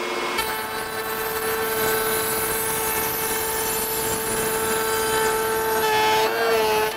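Table saw running as it rips a strip off the edge of a primed shiplap board fed along the fence. The motor's steady whine carries cutting noise from about half a second in, and the pitch dips and wavers briefly near the end as the cut finishes.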